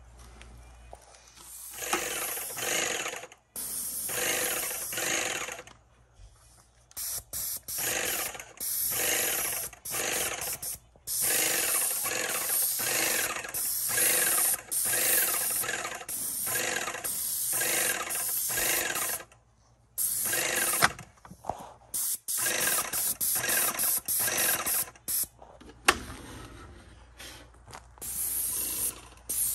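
Electric airless paint sprayer spraying in repeated bursts of a second or two with short breaks between them, as the gun trigger is pulled and released. Each burst is the hiss of paint through the spray tip over the mechanical running of the sprayer's pump.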